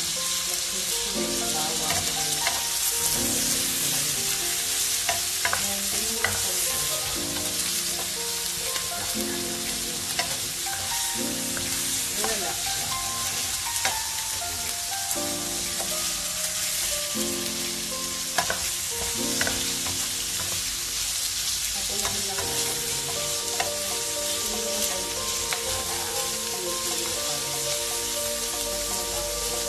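Diced chicken and onions sizzling in a nonstick frying pan, stirred with a wooden spatula that knocks and scrapes against the pan now and then.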